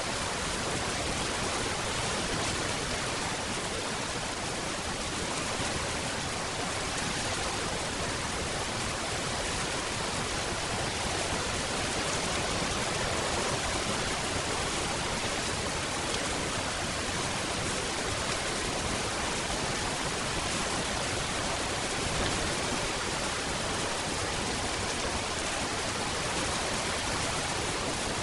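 Steady rain falling: an even, unbroken hiss with no distinct drops or changes.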